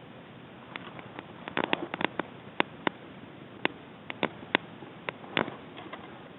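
A series of sharp, irregularly spaced clicks and snaps, about fifteen in all, starting about a second in, over a steady low hiss.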